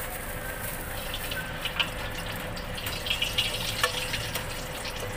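Meatballs and sausages deep-frying in a pot of oil over a gas burner: a steady sizzling hiss, with scattered light clicks.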